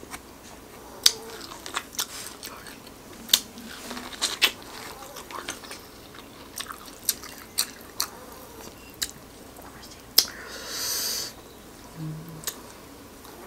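Close-miked chewing of corn on the cob: many sharp, crunchy clicks of kernels being chewed, with a brief hiss a little after ten seconds in.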